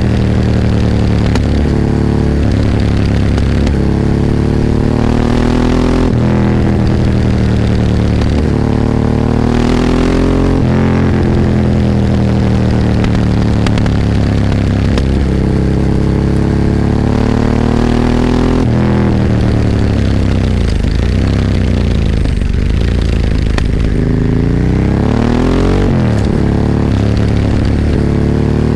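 Ducati 998's 90-degree L-twin engine heard from on the bike, revving up hard through the gears with the pitch climbing and dropping sharply at each upshift. About twenty seconds in the revs fall through a run of downshifts, then it pulls hard again near the end.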